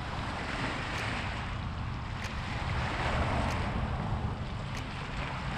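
Wind buffeting the microphone over small waves washing against shoreline rocks. The wash swells and fades every second or two.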